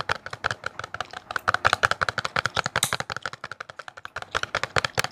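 Long fingernails tapping quickly on a cardboard toothpaste box, a dense run of sharp clicks several a second.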